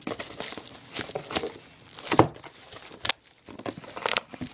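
Packaging being torn open and crinkled by hand: irregular rips and crackles, the sharpest about two seconds in.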